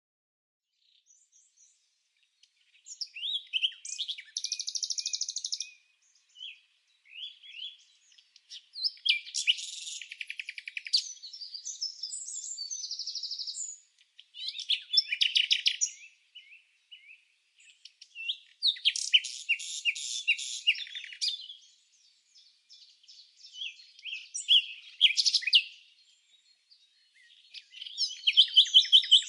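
Small songbirds chirping and singing in repeated phrases of high twitters and rapid trills, each a few seconds long, with short silent gaps between them.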